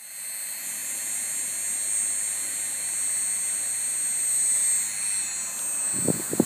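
Small electric motor spinning up a 3D-printed ducted fan: a steady high whine with rushing air that builds over about the first second and then holds. Near the end, irregular low rumbles join in.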